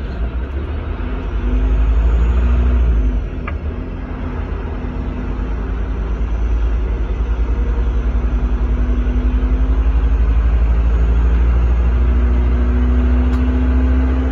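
Semi-truck tractor's diesel engine pulling a loaded float trailer, heard from inside the cab: a deep, steady rumble with an engine note that comes and goes as the throttle changes, growing louder and more sustained over the second half.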